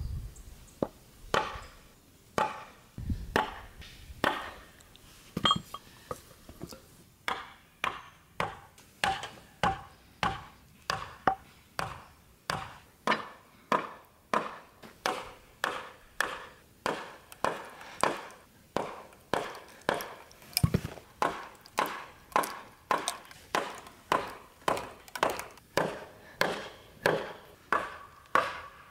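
Repeated blows on the back of a steel hatchet driven as a wedge into a fresh green tan oak log to split it, each a sharp knock with a short ring. A few scattered blows at first, then steady hammering at about three blows every two seconds.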